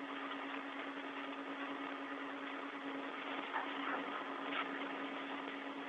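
Steady hiss of an open space-to-ground radio channel, with a steady low hum under it and a few faint clicks about two-thirds of the way through.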